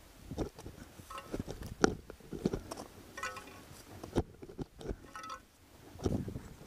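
Crampon footsteps crunching and scraping on snow and rock, with metal climbing gear clinking and ringing briefly a few times.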